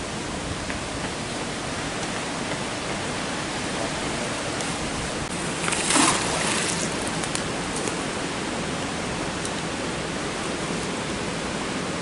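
Steady rush of water running over a weir, with one loud splash about six seconds in as a thrown magnet on a rope hits the water, followed by a few faint drips.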